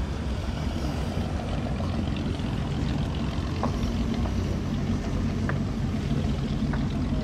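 A motor engine idling steadily, a low even rumble, with a few faint clicks over it.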